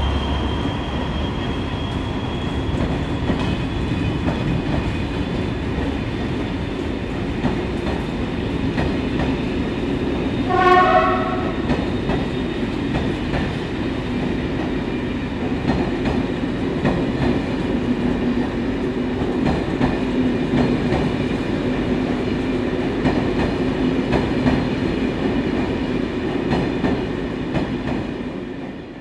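SNCF BB 67400-class diesel locomotive hauling a rake of coaches away at low speed, its engine running steadily under load, with wheels clicking over rail joints and points. A short horn blast about ten seconds in is the loudest sound.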